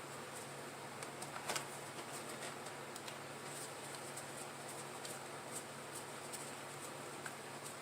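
Light clicks and taps of laptop parts and small tools being handled, over a steady hiss, with a louder cluster of clicks about a second and a half in.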